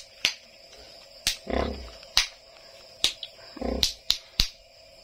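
A nursing sow giving two short, low grunts while her piglets suckle, among about seven sharp clicks.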